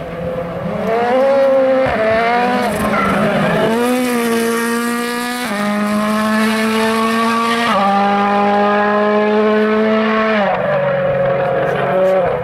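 M-Sport Ford Fiesta WRC rally car's turbocharged four-cylinder engine under hard acceleration, its note climbing and then dropping in pitch in sharp steps several times as it shifts up through the gears.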